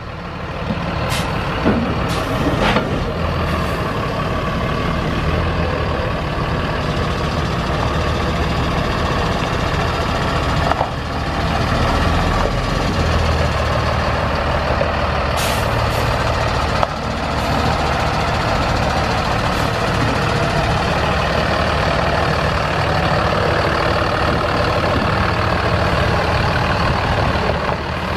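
Mercedes-Benz MBE906 6.4L inline-six turbo diesel of a Freightliner M2 semi truck running steadily, with several short sharp sounds in the first few seconds and again about halfway through.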